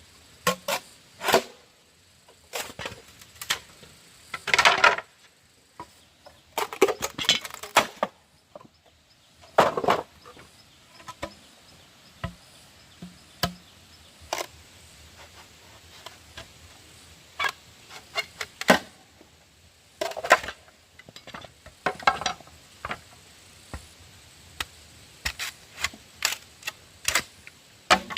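Irregular knocks and clicks with a few short scraping bursts, like hand work with wood or tools.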